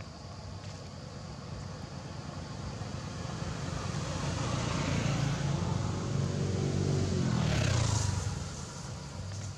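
A motor vehicle passes on the road. Its engine grows louder over several seconds, is loudest about eight seconds in, drops in pitch as it goes by, then fades.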